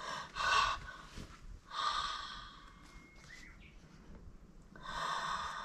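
A woman breathing out heavily three times, about two seconds apart: sighs of someone deeply moved.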